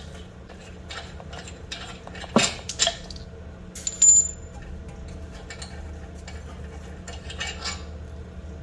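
Metal tools and parts clinking and knocking during hand work, with a sharp metallic clank about two and a half seconds in and a short ringing clink about four seconds in.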